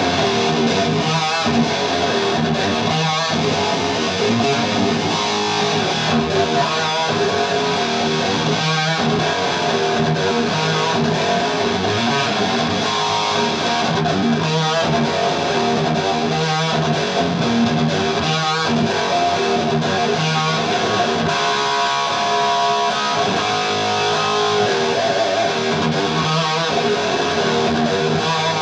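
Electric guitar played through an amplifier, running continuously at a steady level.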